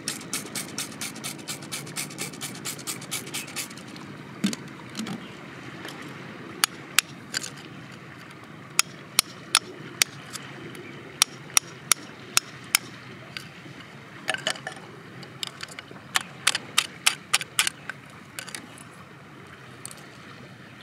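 Metal screwdriver tip picking and scraping in gritty sand and stone, digging a crystal out of the rock. It makes a quick run of sharp clicks, about four a second, for the first few seconds, then scattered louder ticks and scratches.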